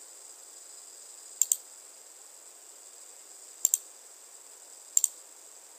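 Computer mouse clicked three times, each click a quick pair of sharp snaps, over a steady high-pitched hiss.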